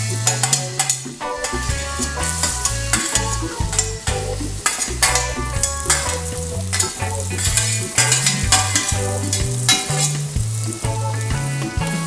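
Chopped ginger, garlic and green chilies sizzling in hot oil in an aluminium pressure cooker as they are pushed in and stirred with a spoon, with scraping clicks of metal on metal. Background music with a steady bass line plays underneath.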